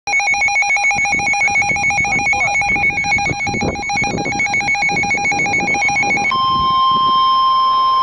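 Midland handheld NOAA weather radio sounding its alert for a flash flood warning: a rapid run of pulsing electronic beeps. About six seconds in, this switches abruptly to a steady alarm tone, the broadcast's 1050 Hz warning tone, which comes before the voice message.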